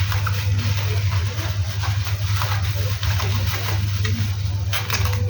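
A steady low hum under scattered light clicks and rustles.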